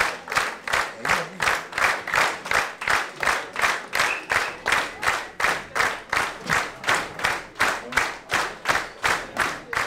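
Theatre audience clapping in unison, a steady rhythm of about two and a half claps a second.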